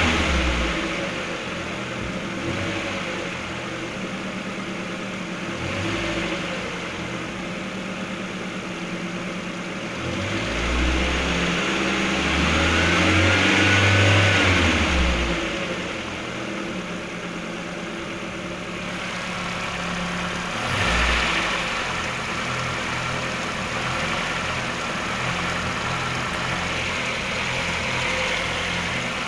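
Car engine idling, revved up and let back down to idle twice: a long rev about a third of the way in, and a short blip about two thirds of the way in.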